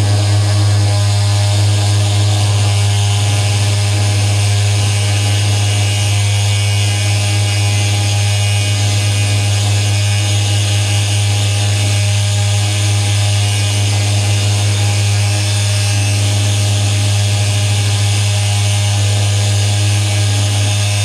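Electronic drone from a patch-cabled tabletop electronics rig: a loud steady low hum with a dense stack of steady higher tones that flicker and shift, and a hiss on top.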